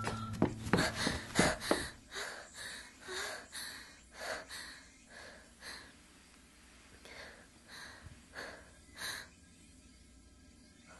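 A person's sharp gasps in the first two seconds, then quick, shaky breaths about two a second that grow fainter and die away.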